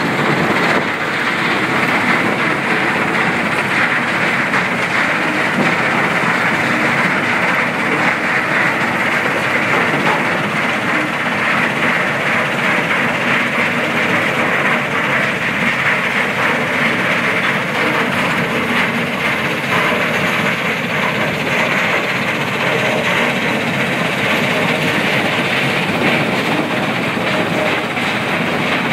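Powerscreen mobile tracked crushing plant running and crushing demolition rubble: a loud, steady mechanical din, thick with the fast rattle of broken stone passing through the crusher and onto the conveyors.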